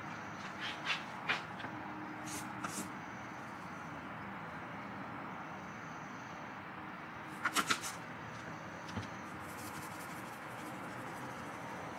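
A spice shaker being shaken over salmon fillets: scattered light clicks and rattles, with three quick sharp shakes about seven and a half seconds in, over a low steady background hum.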